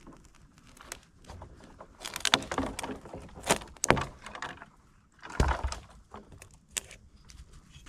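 Sticks and kindling being handled and snapped for a campfire: irregular rustling, crackles and knocks in short bursts, with brief pauses between.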